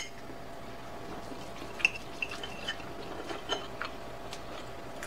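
Fork and knife clinking against a ceramic dinner plate as chicken is pulled apart: a few light, sharp clinks, the loudest about two seconds in, over a faint steady hum.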